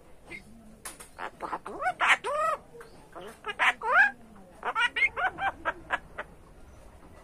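Common myna calling: a string of clicks and arched, rising-then-falling calls, then a fast run of short chattering notes that stops about six seconds in.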